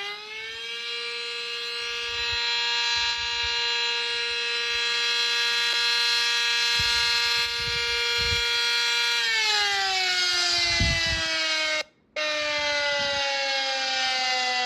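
Emergency alert alarm: a buzzy siren tone finishes rising in pitch within the first second, holds one steady pitch for about eight seconds, then slowly winds down, with a brief cut-out a couple of seconds into the fall.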